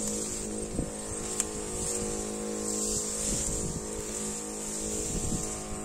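Motorized weed sprayer's motor running steadily at an even pitch while the lance sprays herbicide onto weeds and saplings.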